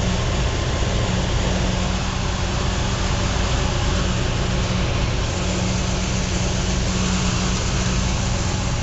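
1985 Jeep CJ7 Laredo's carbureted engine idling steadily on its own just after a winter cold start, after sitting unused for about two months.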